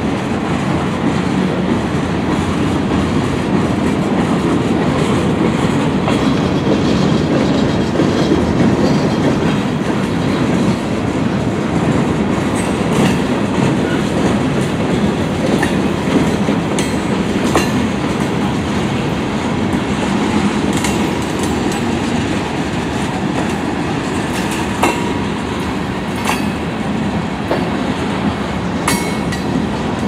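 Freight train cars (gondolas and covered hoppers) rolling steadily past: a continuous loud rumble of steel wheels on rail, with scattered sharp clicks from about a third of the way in.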